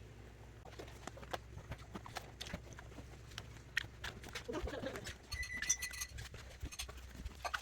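Plastic fidget toys clicking and knocking as they are handled and packed into a box. A short cooing, pigeon-like call comes about halfway through, followed by a brief high tone.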